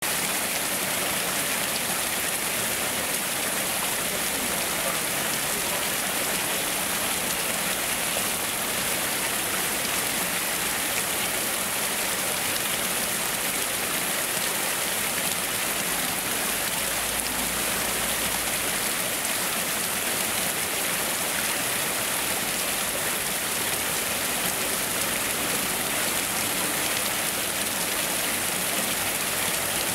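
Small cascade of water spilling over mossy rocks into a shallow pool: a steady, hissing splash with no let-up.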